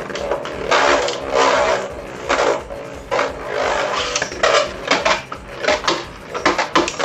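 Beyblade tops spinning and clashing in a plastic stadium: a rapid, uneven run of scraping, rattling grinds and sharp plastic knocks.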